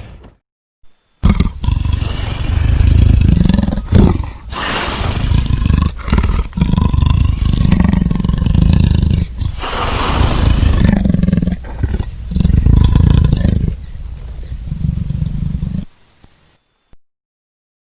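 Dragon sound effects: a string of loud, rough roars and growls in the style of a big cat, separated by brief breaks. They start about a second in and stop about two seconds before the end.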